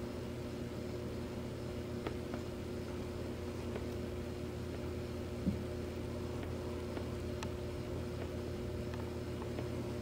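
Steady electric hum of an aquarium filter pump, with a few faint clicks and one soft knock about five and a half seconds in.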